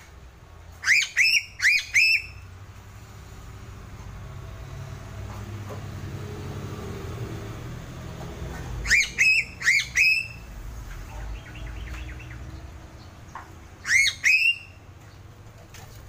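Sulawesi piping crow calling: short, sharp calls that each slide upward, in three runs, four calls about a second in, four more about nine seconds in, and two near the end, over a low background rumble.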